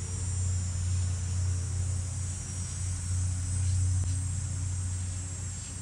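Steady low electrical-sounding hum with an even high insect chirr over it, and a few faint scratches of a felt marker on paper.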